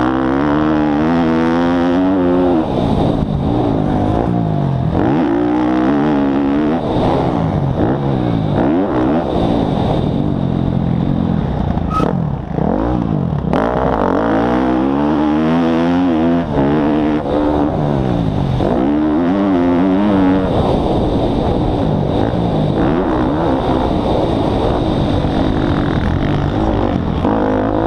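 Motocross bike engine heard up close from a camera mounted on the bike, revving up and dropping back over and over as the rider accelerates and backs off around a dirt track.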